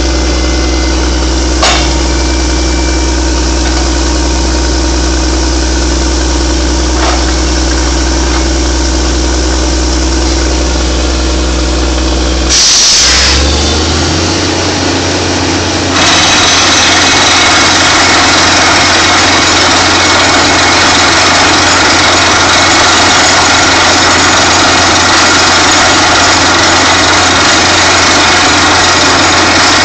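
DTH drill rig's engine running steadily. A short loud burst comes about twelve seconds in, and from about sixteen seconds the sound becomes louder and harsher, with a fine rapid rattle on top.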